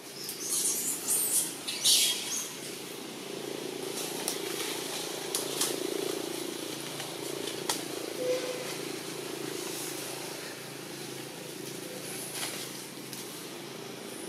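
Outdoor ambience: a few bursts of rustling in the first two seconds, then a steady engine hum that swells toward the middle and slowly fades, with a couple of sharp clicks.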